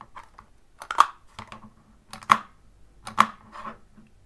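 Vintage DYMO-style embossing label maker (tape writer) with its handle partly squeezed over and over, giving sharp clicks about once a second. Each partial press feeds the tape forward without embossing or cutting it.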